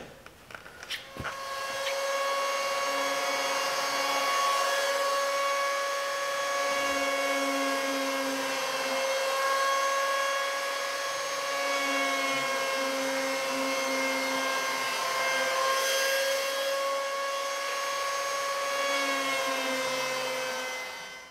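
Handheld electric power planer running, a steady high motor whine, as it cuts a 45-degree chamfer along the edge of a plywood boat transom. It starts with a click about a second in and winds down near the end.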